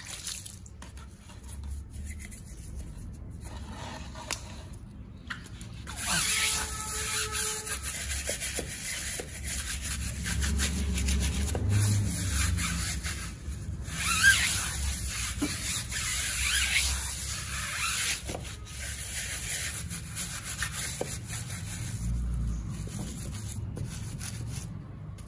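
Stiff hand scrubbing brush working over a soapy alloy wheel and tyre sidewall, a rough rubbing and scraping in uneven strokes. It gets louder from about six seconds in.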